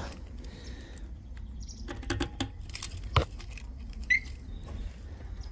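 A bunch of keys on a ring jangling, with a few sharp clicks as a key is fitted into a motorcycle's ignition switch; the loudest click comes a little after three seconds in, and a short high chirp about four seconds in.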